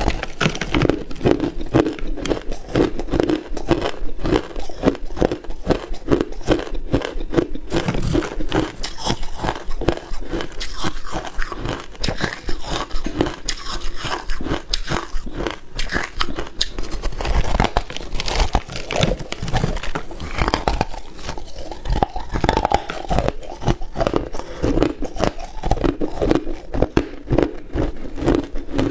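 Close-miked biting and crunching of hard frozen ice: a chunk is bitten off and chewed, giving a continuous, irregular crackle of shattering ice in the mouth.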